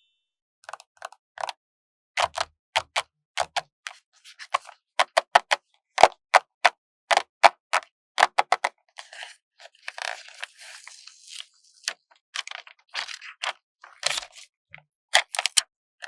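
Stickers being handled and peeled off their backing sheet: a quick string of short, crisp crackles and clicks, with a longer, softer rustle a little past halfway.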